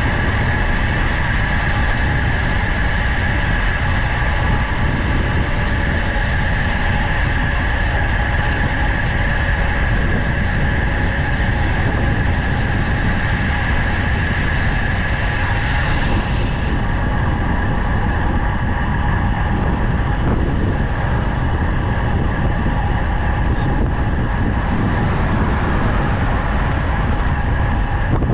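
Steady wind noise buffeting the microphone of a camera on a road bike descending at speed, a loud, even rumble.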